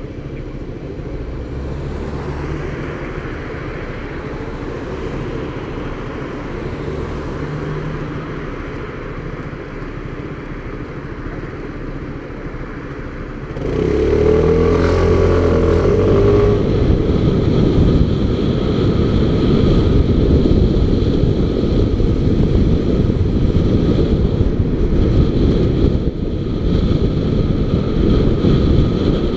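Motorcycle engine idling while the bike waits at a red light. About halfway through it gets much louder as the bike pulls away, the revs rising briefly, then it runs on steadily under the noise of riding.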